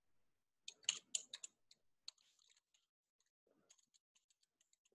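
Computer keyboard keys clicking: a quick run of keystrokes about a second in, then fainter scattered key clicks near the end.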